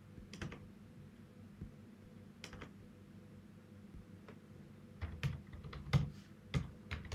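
Computer keyboard typing: a few scattered key clicks, then a quick run of keystrokes near the end.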